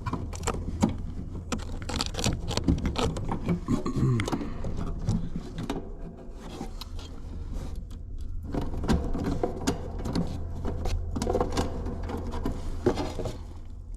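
Repeated clicks, taps and scrapes of sheet-metal panels and parts being handled on a heat pump's heat kit, with a steady low hum underneath.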